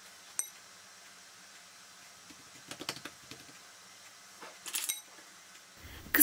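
A single sharp metallic clink of a fork on the worktop, then two short clusters of light taps and clicks as utensils and dough are handled while a filled pastry round is folded and a fork is picked up to press its edge.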